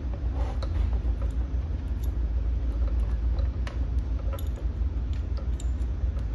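Faint small clicks and ticks of wire connectors and ring terminals being handled and pushed together, over a steady low rumble.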